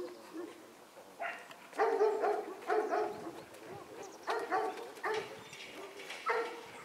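A dog barking: a series of short barks, bunched in twos and threes.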